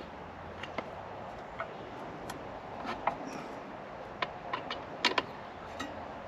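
Scattered light clicks and taps as the circular saw blade and the fittings of a bench-mounted saw blade sharpener are adjusted by hand, over a steady low hiss; a quick double knock about five seconds in is the loudest.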